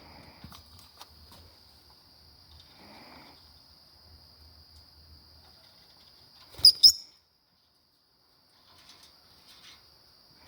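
Two sharp, loud lovebird chirps in quick succession about two-thirds of the way through, over a steady high-pitched whine and soft rustling of the birds picking at turnip greens.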